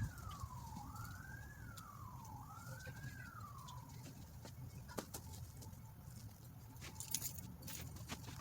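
Faint emergency-vehicle siren wailing, its pitch rising and falling about once every second and a half, fading out about four seconds in. A few light clicks follow over a low steady background rumble.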